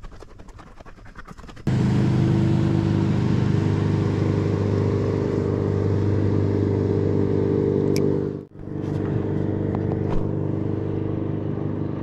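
A motor on a fishing boat humming steadily with several fixed low tones. It starts abruptly about two seconds in, after light wind buffeting, and drops out for a moment about eight and a half seconds in.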